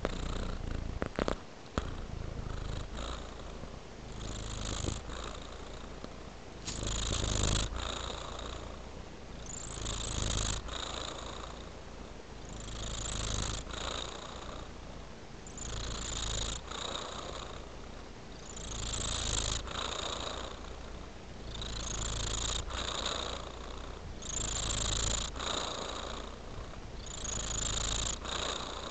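Tabby cat purring steadily and close, the purr swelling and easing about every three seconds. A few sharp clicks about a second in.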